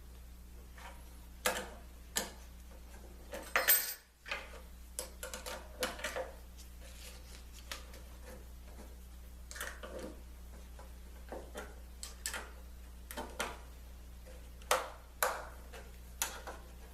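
Metal clamps clinking and knocking as they are handled and tightened on a glue-up, in scattered clicks with a few louder clanks, over a low steady hum.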